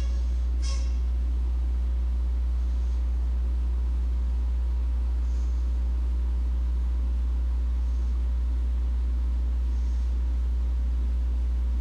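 A steady low hum at an unchanging level, with fainter steady higher tones above it.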